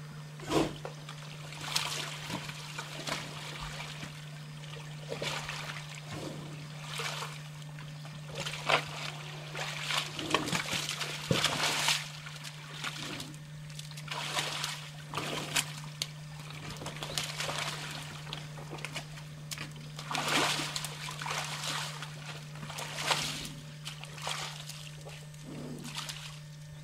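Square-lipped (white) rhinoceros wallowing, getting up and stepping through a muddy pool: irregular wet splashes and slops of mud and water.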